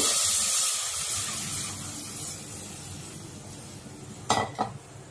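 Milk being poured into an aluminium pot: a rushing, splashing pour that is loudest at the start and gradually fades away over a few seconds.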